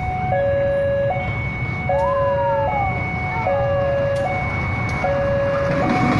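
Electronic two-tone warning alarm, switching between a low and a high note about every 0.8 seconds, over a low rumble as a diesel-hauled passenger train draws near.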